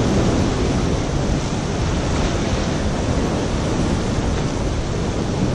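Sea surf washing and churning against a concrete jetty wall, a steady rushing noise, with wind buffeting the microphone.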